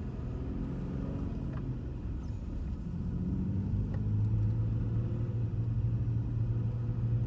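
Car engine and road noise heard from inside the cabin while driving, a steady low drone that grows louder about halfway through.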